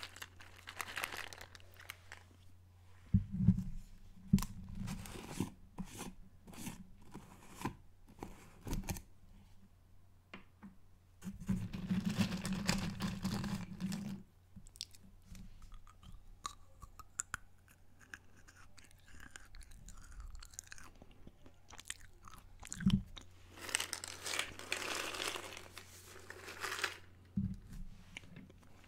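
Peanuts being chewed and crunched close to the microphone, with many short crackly crunches. A few longer, denser stretches of noise, one of them as a hand scoops more peanuts out of the jar.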